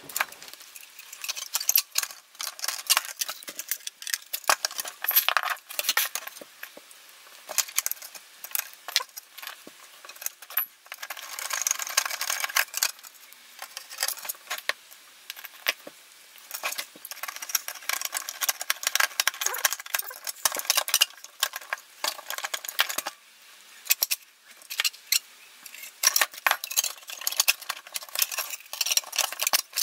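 Many irregular sharp clicks and light metallic clinks: screws, circuit boards and the metal chassis of an aircraft navigation receiver being handled and fitted back together.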